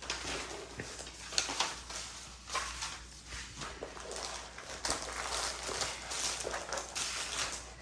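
Rustling and irregular tapping of a diamond painting kit's packaging being handled and unpacked, a string of small clicks and crinkles.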